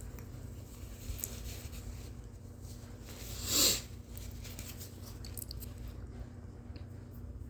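A person's short, sharp breath of air, about three and a half seconds in, with faint small clicks and rustles around it.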